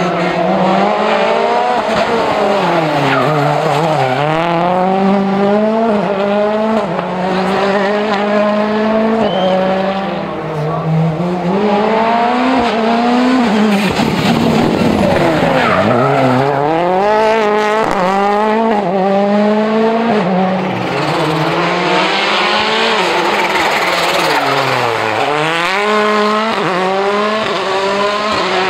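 World Rally Cars' turbocharged 1.6-litre four-cylinder engines revving hard on a rally stage, the engine note climbing and dropping sharply again and again through gear changes and lifts.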